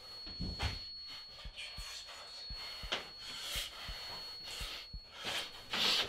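A thin, steady high-pitched ringing tone that stops about five seconds in, over soft rushes of noise and small ticks and knocks. A louder rush of noise swells near the end.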